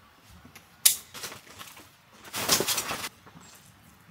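A folding camp cot being handled and unfolded: a sharp click from its frame about a second in, then its fabric rustling, with a louder swish of under a second near the middle.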